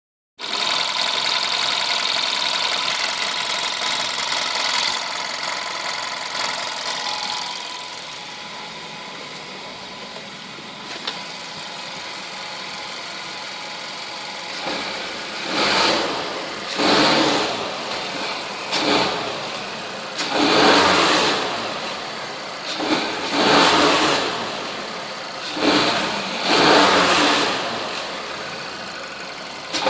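VW Golf 6 1.2 TSI four-cylinder turbo petrol engine running cold, at first at a higher, steadier idle that drops after about seven seconds. In the second half it is revved in about seven short blips, each rising and falling within a second. The owner finds the noises it makes in this cold state strange.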